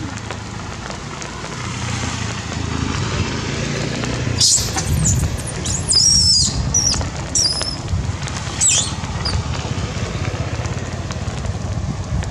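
Several short, high-pitched squeals from long-tailed macaques, bending in pitch, come between about four and nine seconds in over a low steady hum.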